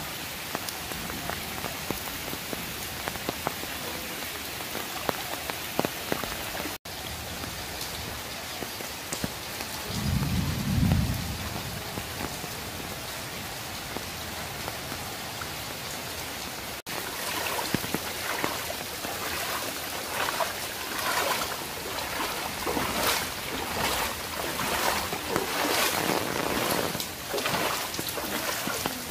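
Steady rain falling on standing floodwater, with a short low rumble about ten seconds in. In the last third, a run of regular splashes from footsteps wading through shallow floodwater.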